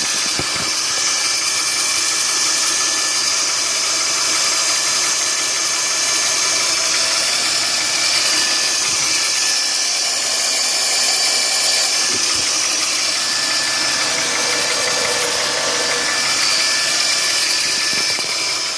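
Chevrolet Epica engine running warm, heard from the lower part of the engine bay, with a steady high-pitched whine over the engine noise. The owner traces this extraneous noise to the lower part of the engine and suspects the oil pump chain or worn oil pump gears.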